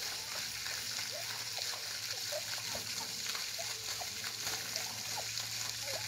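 Turkeys calling: a string of short, rising clucks and yelps, about two a second, over a steady hiss of running creek water.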